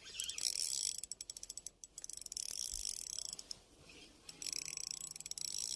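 Ultralight spinning reel (Shimano Soare CI4+ C2000SSPG) clicking rapidly while a hooked chub is being fought, in spurts with short pauses.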